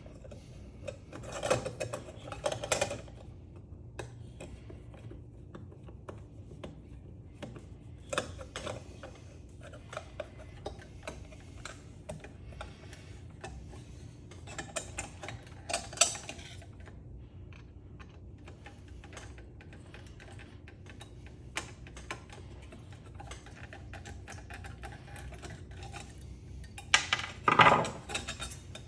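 Metal parts and hand tools clicking and clinking as a ceiling fan is taken apart for scrap, with scattered small ticks and a few louder clattering bursts, the loudest near the end.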